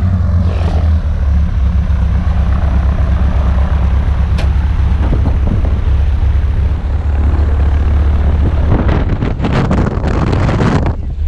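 A light single-engine plane's piston engine and propeller idling on the ground, a steady low drone heard at close range. Near the end there is a burst of knocks and rustling.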